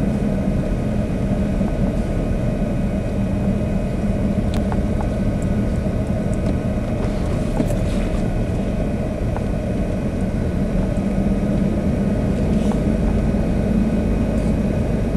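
Steady engine and road noise of a vehicle driving, with a low hum and a few faint ticks.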